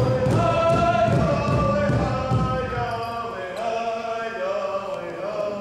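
Native American powwow drum group singing in chant over steady beats on a large shared drum. The drumming stops about halfway and the voices carry on alone with long held notes, closing out the song.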